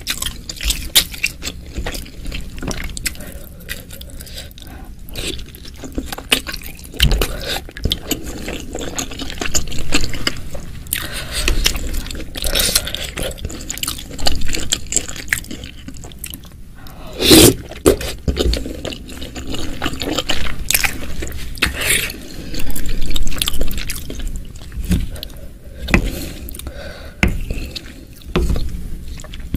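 Wooden spoon stirring and scooping through a bowl of chilli broth with meatballs and beef tendon: liquid sloshing and dripping, the spoon scraping and clicking against the bowl. A few louder bursts come around the middle.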